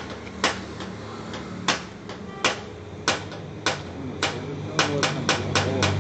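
A series of sharp taps or knocks, about one every half second or so, quickening to several in quick succession near the end, over a low steady hum.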